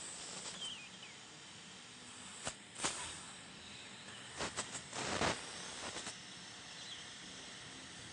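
Dental suction tip hissing steadily at the tooth, with a handful of short noisy bursts in the middle stretch, the loudest about three seconds in and just after five seconds.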